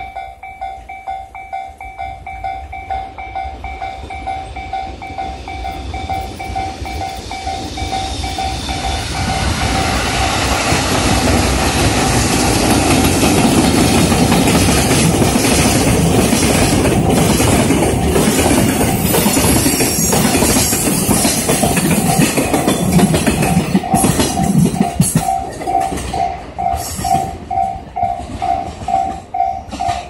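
Freight train of tank wagons hauled by an EF65 electric locomotive passing, with the wheels clacking over rail joints. Its noise builds over the first ten seconds or so, holds, then fades near the end. Throughout, a Japanese level-crossing warning bell rings in a steady, repeating electronic ding.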